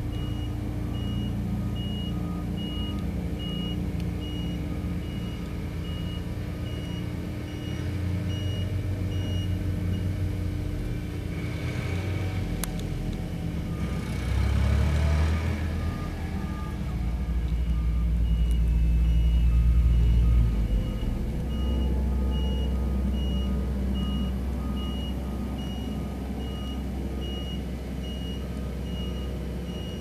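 Road roller's diesel engine rumbling steadily while its reversing alarm beeps at an even pace; the beeping stops for several seconds in the middle, where a rushing noise swells and fades. The rumble is loudest about two-thirds of the way through as the roller comes close.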